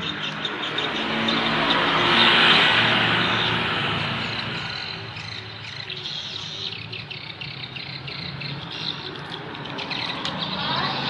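Small birds chirping repeatedly over a steady low hum, with a rushing noise that swells for a couple of seconds and then fades.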